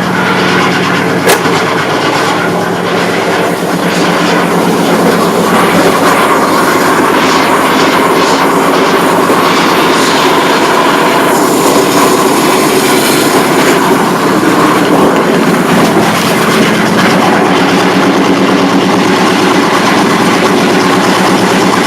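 Ford Explorer's cammed 5.0 L (302) V8 running steadily at idle, with a dense, even pulsing exhaust note.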